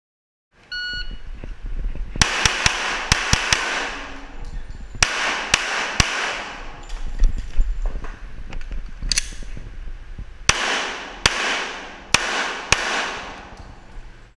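A shot timer beeps about a second in. Then a Glock 41 fires .45 ACP rounds, more than a dozen shots in pairs and short strings with pauses between, each shot ringing with the echo of an indoor range.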